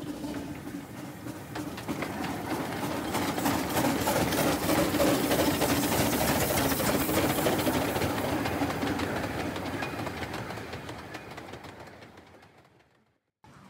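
Narrow-gauge steam locomotive passing close by with its coaches: rapid exhaust chuffs and steam hissing from the cylinders over clattering wheels on the rails. It grows louder to a peak about four to eight seconds in, then fades and cuts off just before the end.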